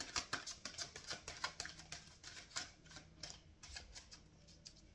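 A deck of oracle cards shuffled by hand: a quick run of soft card-on-card clicks and slaps, about six a second, thinning out near the end.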